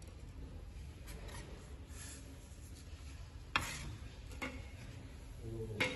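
Small clear plastic trays and a digital scale handled on a tabletop: light rustling and tapping, with a sharp click as a tray is set down about three and a half seconds in and another click near the end.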